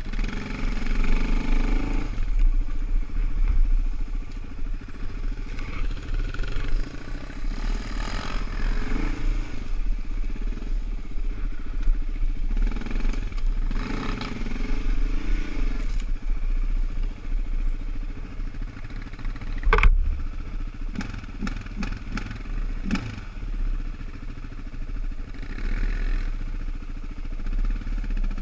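Suzuki LT-Z400 sport quad's single-cylinder four-stroke engine running while riding, the throttle opened and closed in several surges that rise and fall in pitch. A sharp knock a little under twenty seconds in, followed by a few lighter clicks.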